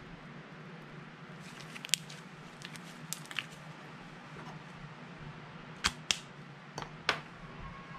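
Sharp clicks and taps from about two seconds in, with a group of four near the end: plastic markers and their caps being handled and set down on a stone countertop, over a steady low room hum.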